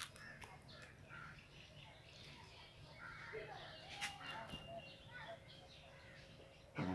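Faint birds calling and chirping in short scattered notes, with a louder short sound just before the end.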